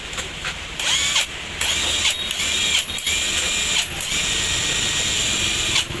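Hitachi cordless impact wrench run off the trigger: a short spin about a second in with the motor whine rising, then a steady run of about four seconds that stops near the end.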